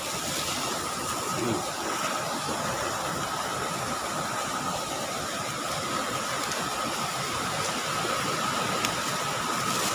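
Steady rushing of a flooded, muddy river, with a thin steady high tone over the noise.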